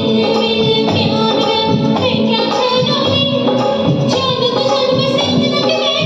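A woman singing a Bollywood film song over instrumental accompaniment.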